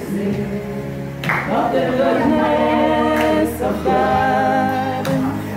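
Music with several voices singing held notes, over a steady low tone.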